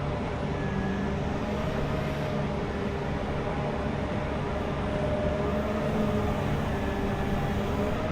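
Heavy construction machine's engine running steadily, with a low hum that drifts slightly up and down in pitch.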